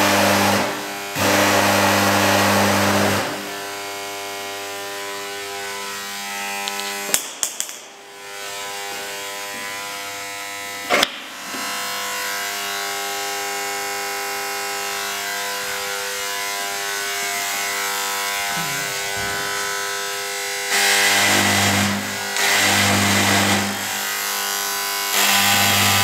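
A mains-powered high-voltage transformer hums steadily with a stack of even overtones. The hum is broken by loud buzzing bursts of an electric arc drawn at its electrodes, twice at the start and twice near the end. Two sharp clicks come in the middle.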